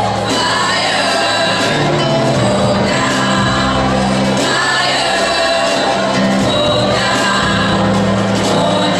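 Gospel praise singing by a group of women singing together through microphones, over instrumental backing that holds sustained low notes.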